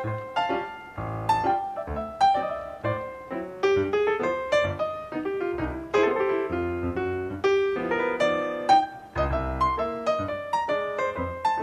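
Background piano music: a quick, steady run of melody notes over low bass notes.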